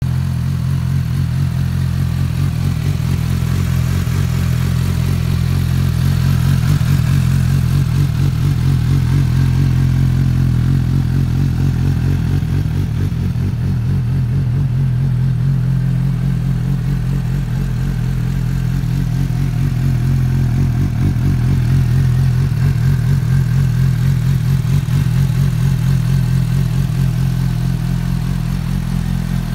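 Suzuki GSR 750's inline-four engine idling steadily through a Yoshimura aftermarket exhaust.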